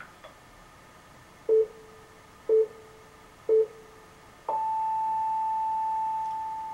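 Electronic time-signal beeps: three short low pips one second apart, then one long pip an octave higher that is held and begins to fade near the end, in the pattern of a Japanese radio time signal.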